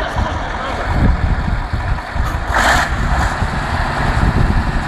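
Off-road vehicle's engine running under load, a continuous low rumble, with a brief noisy hiss a little past halfway.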